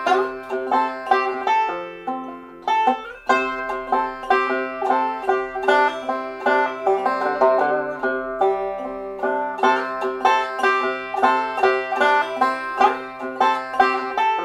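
Background music: a plucked string instrument picking a quick, even run of notes, in a country or bluegrass style.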